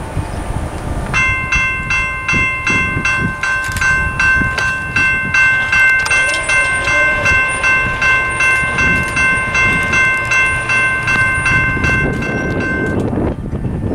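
General Signals Type 2 electronic crossing bell starts up as the crossing activates, ringing a loud, fast, repeated multi-tone ding at about two to three strikes a second. It cuts off abruptly near the end as the gate arms come down.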